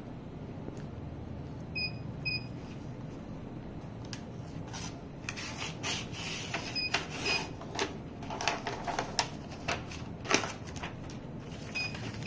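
A short electronic double beep from the heat press's controller, repeating every five seconds like a cycle-finished reminder. Between the beeps come irregular rustling, crinkling and light knocks from the hot printed glass piece being handled and its paper wrapping pulled off.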